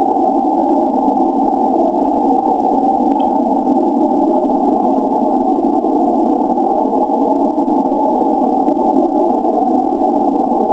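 Steady static hiss of 160-meter band noise from an SDR receiver's speaker, picked up by a vertically polarized magnetic receive loop. The hiss is narrowed by the receiver's audio filter, so it sounds muffled and held within a narrow band of pitch.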